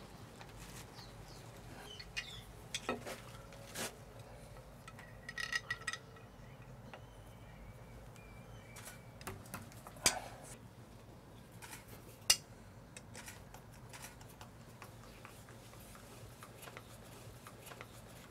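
Faint, scattered clicks and taps of hand work on a tiled wall as a soap dish is fitted and screwed on with a hand screwdriver. There is a brief ringing clink about five seconds in, and two sharp clicks around ten and twelve seconds in.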